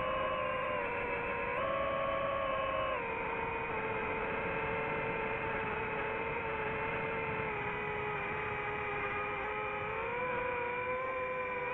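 DJI FPV drone's motors and propellers humming in flight, a steady pitched whine that steps up about one and a half seconds in, drops back about three seconds in, sags slowly, then rises again near the end.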